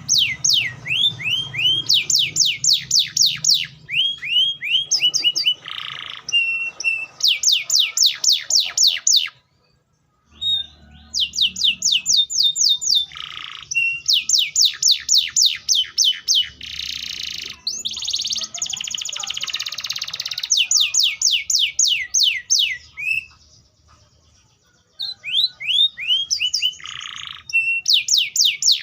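Canary singing in long, fast trills of repeated falling whistled notes, about ten a second, mixed with shorter held notes. The song breaks off twice briefly, the first time about a third of the way in.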